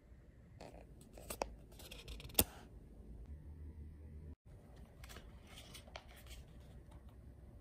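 Soft rustling of paper as a book's pages are handled and turned, with a single sharp click about two and a half seconds in.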